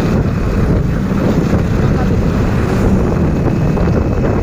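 Wind buffeting a phone microphone from a moving vehicle, a steady loud rumble with the vehicle's running noise underneath.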